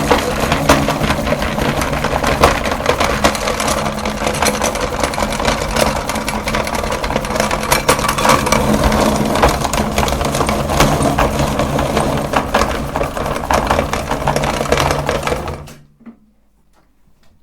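Electric meat grinder running with a steady motor hum while grinding chalk, with a dense crackle of clicks over it. The sound stops abruptly near the end.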